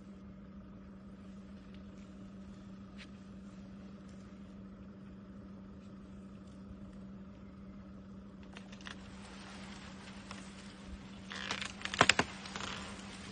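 A steady low hum, then after about eight seconds a rise of rustling, and near the end a short cluster of loud, sharp cracks as an elephant shoves against a dead tree and its wood and branches crack.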